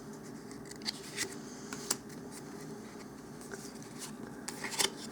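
Trading cards being handled and flipped, with soft rubbing and a few light clicks of card stock, over a faint steady low hum.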